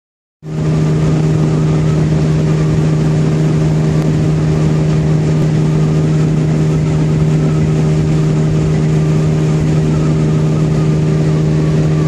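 A boat's motor running at a steady cruising speed: one constant, unchanging drone with a rushing noise under it, starting about half a second in.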